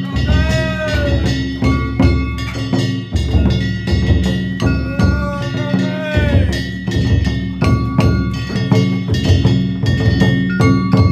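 Danjiri bayashi festival music: a taiko drum beating rapidly under clanging hand gongs that keep ringing. A drawn-out higher sound rises and falls twice, about half a second in and again near six seconds.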